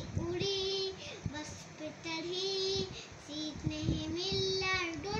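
A young boy singing a children's poem in a sing-song melody, with long held notes between shorter phrases.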